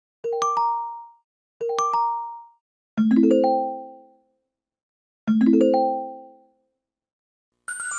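Phone notification tones: a short, bright chime of a few quick notes plays twice, then a lower, fuller chime plays twice, each dying away within about a second. Near the end a brighter, busier notification jingle begins.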